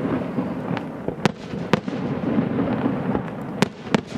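Fireworks display: about five sharp bangs of bursting shells over a continuous crackle.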